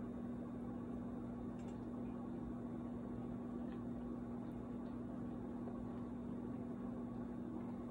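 Steady low electrical hum with a constant tone and an even hiss of room noise, with a few very faint ticks.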